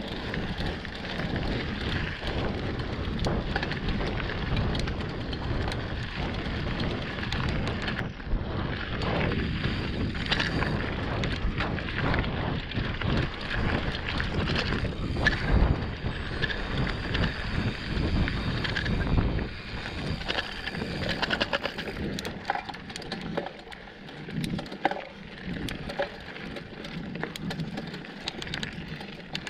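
Mountain bike ridden over rough ground, with wind rushing on the camera microphone and the bike's frame and parts rattling and knocking over bumps. It turns quieter and more broken, with separate knocks, after about twenty seconds.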